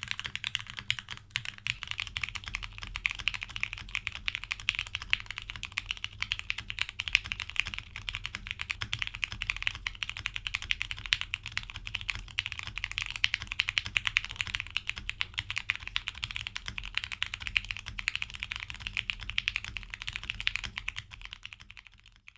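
Continuous fast typing on a Loki65 custom 65% mechanical keyboard built without any foam inside: a dense, rapid stream of keystroke clacks that fades out near the end.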